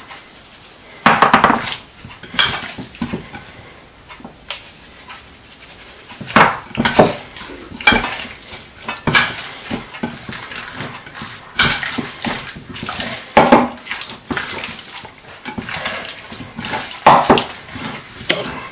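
Hands mixing and kneading raw chicken pieces in a glass bowl: wet handling sounds in irregular bursts a second or two apart.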